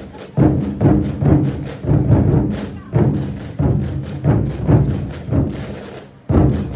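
24 Festive Drums ensemble: large Chinese barrel drums beaten together in a driving rhythm of heavy strokes, about two a second, with a short gap before a strong accented stroke near the end.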